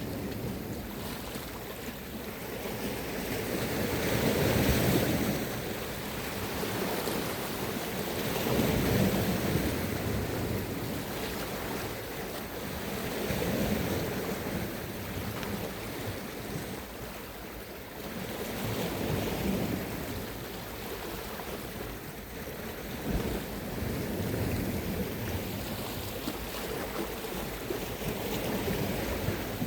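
Sea waves washing onto the shore, each one swelling and fading about every four to five seconds.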